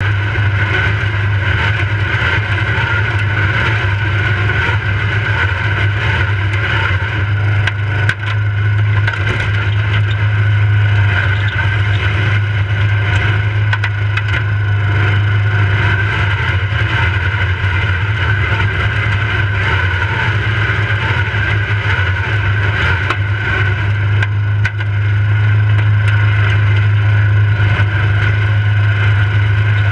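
Riding lawnmower engine running steadily under way with a strong, even low hum, over constant rattling and clattering of the mower's body jolting across rough ground. It dips briefly about a quarter of the way in and grows a little louder near the end.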